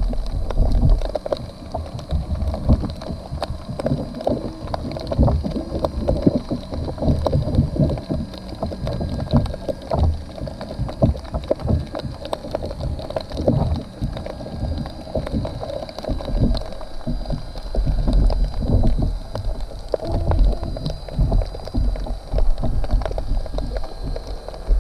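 Muffled underwater sound picked up by a GoPro in its waterproof housing inside a crab trap: a low rumble of moving water with frequent irregular knocks and clicks.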